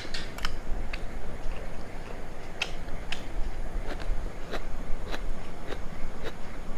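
Close-miked chewing of a mouthful of pulao and chicken: short, wet mouth clicks and smacks, about two a second.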